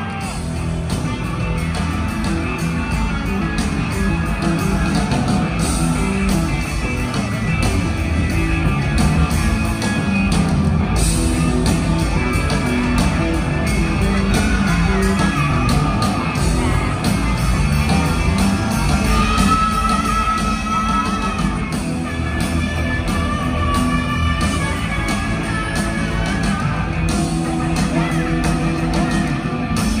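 Live rock band playing loudly, heard from the audience in a large arena: electric guitar, bass and drums, with a high male lead voice singing and holding long notes over them.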